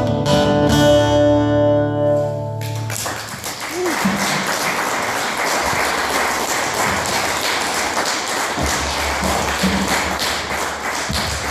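Acoustic guitars end a song on a held final chord that rings and stops about three seconds in, followed by an audience applauding steadily.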